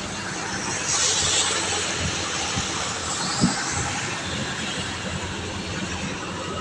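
Road traffic on a flooded road: vehicle engines and tyres hissing through standing water, the hiss swelling about a second in. A single sharp knock comes a little past the middle.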